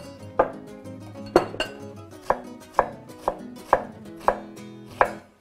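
Large kitchen knife chopping a red onion on a wooden cutting board: about nine sharp knocks of the blade on the board, irregularly spaced roughly every half second to a second. Soft background music with steady tones plays underneath.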